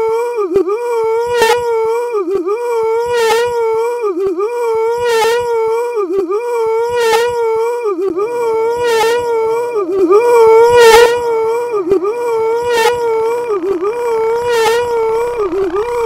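A looped, distorted high-pitched wail held on one pitch, dipping briefly about once a second, with a sharp click roughly every two seconds. Near the end a second tone begins sliding steeply upward in pitch.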